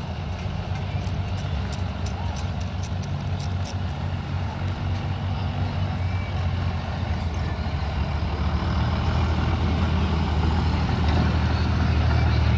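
A pulling vehicle's diesel engine running steadily with a low, even hum, getting louder over the last few seconds.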